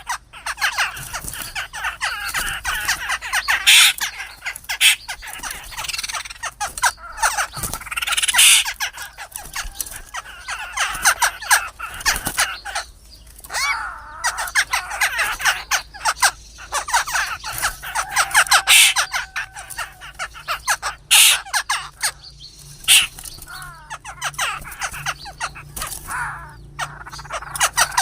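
Black-throated laughingthrushes in a fight, giving a dense run of harsh squawking, chattering calls with loud sharp bursts and brief pauses.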